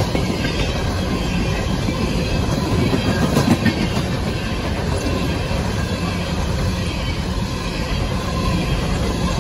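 CSX freight train's open-top coal cars rolling past close by: a steady heavy rumble of steel wheels on rail, with faint wheel squeal at times and a louder clank about three and a half seconds in.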